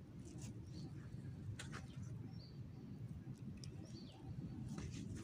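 Small birds chirping in short high notes, a few seconds apart, over a steady low background rumble, with one short sharp sound about one and a half seconds in.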